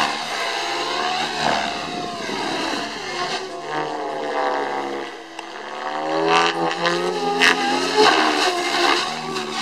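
Radio-controlled helicopter in 3D aerobatic flight: its motor and rotor whine glides down and back up in pitch as the manoeuvres load and unload the rotor, with a few sharp cracks in the second half.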